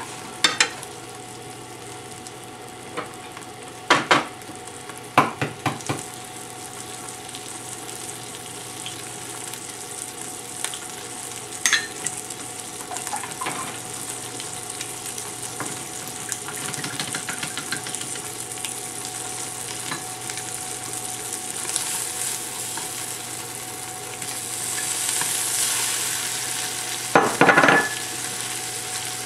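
Bacon strips sizzling in a nonstick frying pan, with chopsticks knocking against the pan several times as they stir. Near the end the sizzle swells louder as scallops go into the pan, followed by a cluster of knocks.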